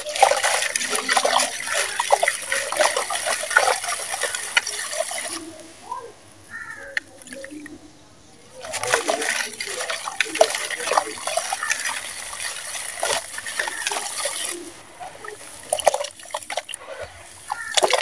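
Dry sand-cement blocks crumbled by hand into a bowl of water: a gritty hiss of falling grains with crumbs crackling and splashing into the water. It comes in two long spells, each followed by a quieter pause.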